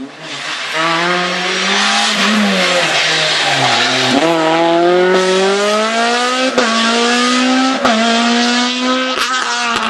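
Honda Civic Type R rally car's four-cylinder engine revving hard as it drives through a tight bend and pulls away, its pitch climbing, dropping back and climbing again. A few sharp cracks come in the second half.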